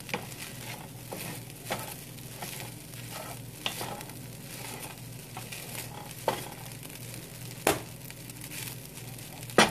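Fried rice sizzling in a hot skillet while a wooden spatula stirs and scrapes through it, with scattered sharp knocks of the spatula against the pan, the strongest about three quarters of the way in.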